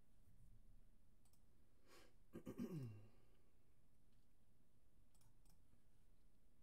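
Near silence in a small room with a few faint clicks. About two and a half seconds in there is a short sound that falls in pitch.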